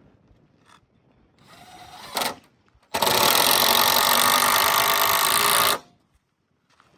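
Power tool running: a short burst about two seconds in, then a steady run of nearly three seconds that cuts off suddenly.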